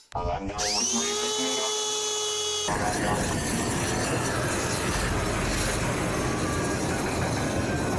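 A power tool's motor spins up, its whine rising and then holding steady. A little under three seconds in, a loud rough grinding noise takes over and runs on.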